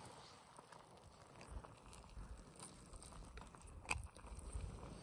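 Faint bubbling of a small camp cooking pot at a rolling boil, with scattered small clicks and a sharper tap about four seconds in as a plastic spork works in the pot.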